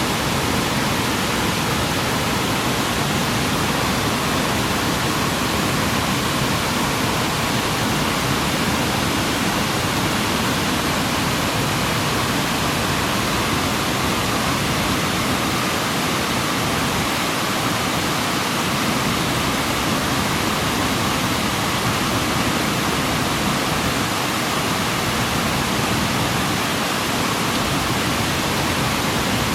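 Waterfall: water pouring and splashing over rock in a steady, loud rush.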